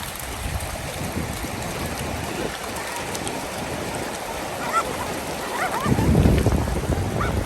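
Steady wash of sea surf and wind, with a louder rush of noise about six seconds in. A few faint, short high whines from a dog come in over it near the end.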